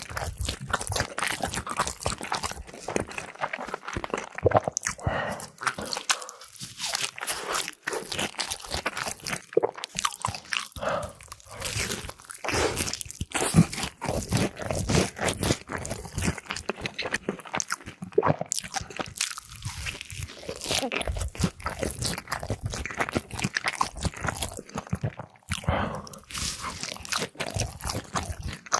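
Close-miked eating of crispy KFC fried chicken: loud, continuous crunching as the fried coating is bitten into and chewed, with no pauses.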